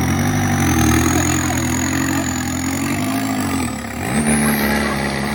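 Off-road 4x4's engine running under load, its revs rising and falling, with a brief drop about three and a half seconds in before it picks up again.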